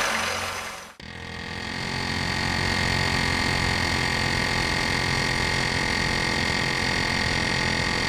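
Cordless drill boring into a steel frame rivet, dying away and stopping about a second in. After that comes a steady mechanical hum with a high, unchanging whine, from an unseen source.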